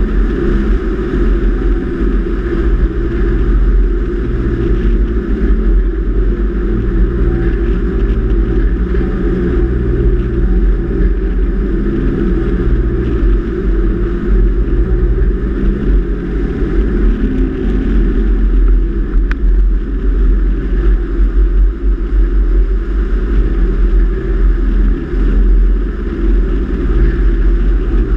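Four-wheel-drive vehicle driving along beach sand: a steady engine drone with heavy wind rumble on the microphone.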